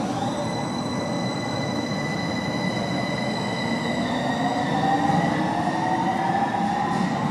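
Copenhagen Metro driverless train (AnsaldoBreda) running, with steady rumbling running noise and a high electric whine from its traction motors; a lower whining tone climbs in pitch over the last few seconds.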